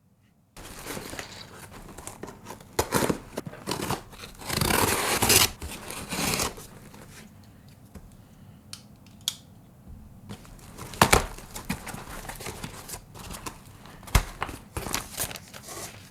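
A shipping package being opened by hand: packaging torn and crinkled, with scattered sharp clicks and knocks of handling. The loudest stretch, over a second of tearing, comes about four seconds in.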